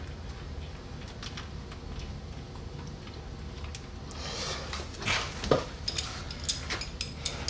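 Light metallic clicks and clinks of a socket and ratchet on an automatic transmission drain plug as it is threaded back in and snugged up, scattered and growing busier from about four seconds in.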